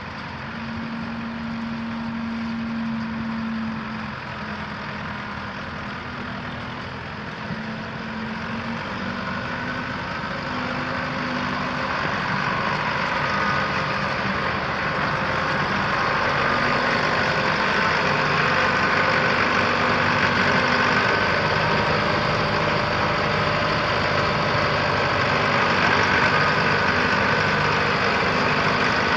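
Allis-Chalmers 6080 tractor's 433TI four-cylinder diesel engine running steadily, growing louder from about halfway in.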